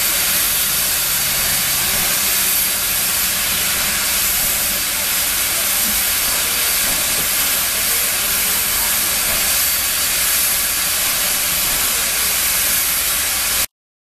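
Steam locomotive hissing steadily as steam escapes; the hiss cuts off suddenly near the end.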